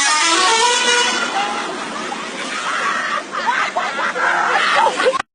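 Bus 'telolet' horn, a multi-tone musical horn, tooting a stepped melody that fades away over the first second or two. Noisier vehicle and voice sound follows and cuts off suddenly near the end.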